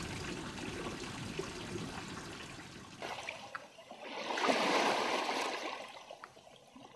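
Flowing water trickling steadily, then a louder rush of water that swells up past the middle and fades away near the end.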